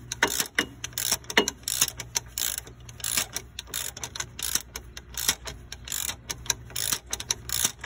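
Hand socket ratchet clicking in quick, uneven runs as a bolt on the front brake caliper assembly is turned out.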